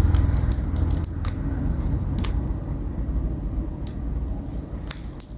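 Several sharp, scattered clicks as vintage Zippo lighters are handled, over a steady low hum.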